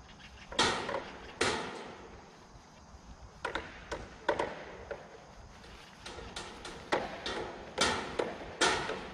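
Hammering at a construction site: sharp hammer strikes at an irregular pace, about one a second, each with a short echoing tail.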